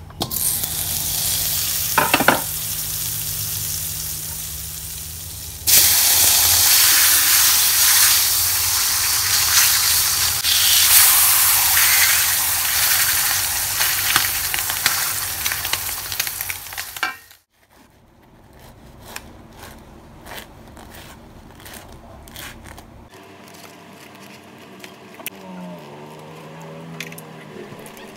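Fat sizzling in a hot aluminium wok, with a sharp crackle about two seconds in; the sizzling gets louder about six seconds in while a wooden spatula works in the pan. It stops abruptly about 17 seconds in, and quieter light clicks and taps follow.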